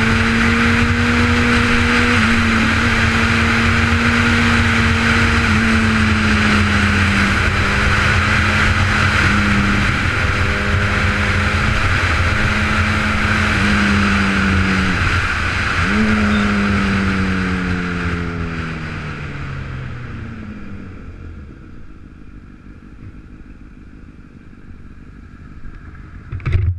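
Motorcycle engine running under way with wind rushing over the microphone. The engine note holds and steps down a few times, dips and climbs again a little past halfway, then sinks as the bike slows. The wind dies away and the engine drops to a quiet idle, with one short knock near the end.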